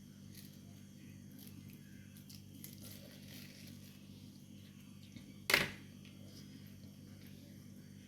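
Faint rustling and handling noises over a steady low hum, with one sharp knock about five and a half seconds in.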